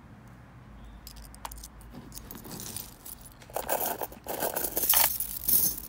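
Metal chain necklaces jingling and clinking as they are lifted and handled. Scattered clinks start about a second in and build to a dense, louder jangle in the second half.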